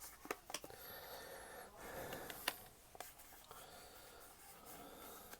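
Faint rustling and a few light clicks of trading cards and foil booster packs being handled.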